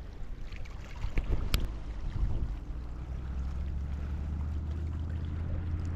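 A boat's engine droning steadily and low, setting in about halfway. Before it come a few sharp clicks and knocks.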